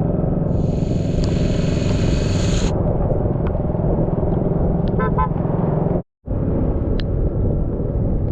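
Single-cylinder Honda 150cc dirt bike engine running steadily while riding. A high squeal sounds for about two seconds near the start, and there is a short rapid chirping burst about five seconds in. The sound cuts out completely for a moment just after six seconds.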